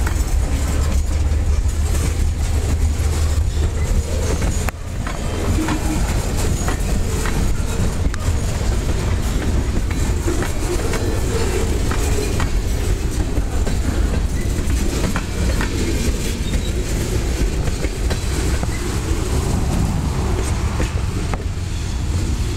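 Freight train cars, boxcars and a tank car, rolling past with their steel wheels clicking over the rail joints, over a steady rumble.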